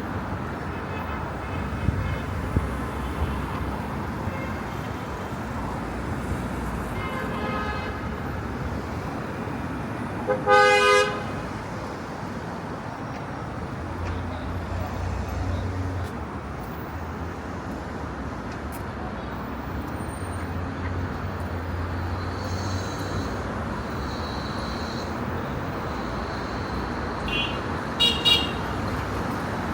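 Steady city street traffic with vehicle horns sounding over it. A faint honk comes about seven seconds in, the loudest, a short double honk, about ten seconds in, and a few quick high beeps near the end.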